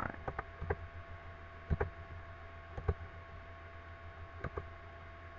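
Computer mouse clicking, a few single and paired clicks spread over several seconds, over a steady electrical hum.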